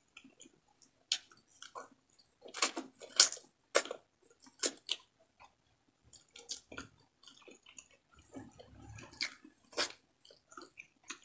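A person chewing and biting fried frog close to the microphone, with irregular sharp mouth clicks and smacks and finger-licking.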